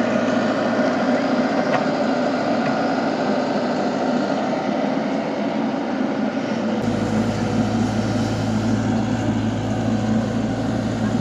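A radio-controlled toy excavator's motors running with a steady whir. About seven seconds in, a deeper hum suddenly joins.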